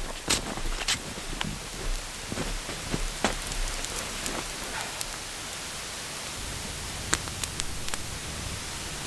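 Small wood campfire burning: a steady hiss with scattered sharp crackles and pops.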